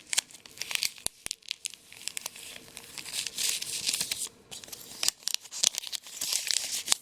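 A sheet of origami paper being folded and creased by hand: crisp crinkling and rustling with sharp little crackles as the folds are pressed flat.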